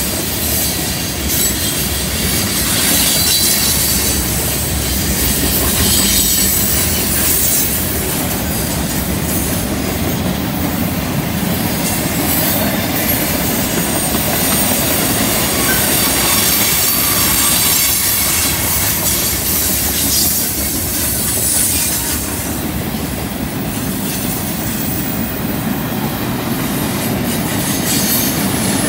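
Freight cars rolling past on a curve: a steady rumble and clatter of steel wheels on rail, with wheel flanges squealing against the curved rail. The train changes from tank cars to empty flatcars.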